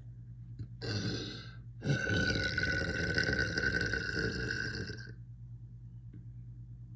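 A person burping: a short burp about a second in, then a long drawn-out burp lasting about three seconds.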